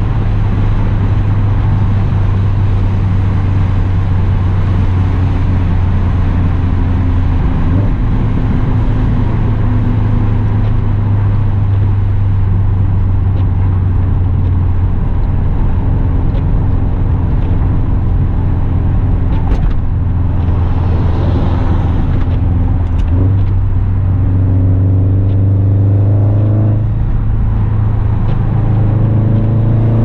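Straight-piped 2008 Subaru Impreza WRX STi's turbocharged flat-four, breathing through a Tomei Expreme Ti exhaust and a Perrin cold air intake, droning steadily at low revs while driving. Near the end it revs up twice in quick succession.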